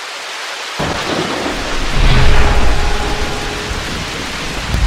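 Rain and thunder from a storm sound effect: a steady hiss of rain, with a low rumble of thunder coming in about a second in and swelling loudest about two seconds in.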